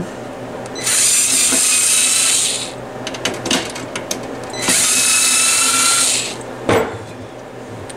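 Cordless electric screwdriver backing out screws from a stereo receiver's metal front panel. It runs with a steady high whine twice, for about two seconds and then about a second and a half, with small clicks and taps in between.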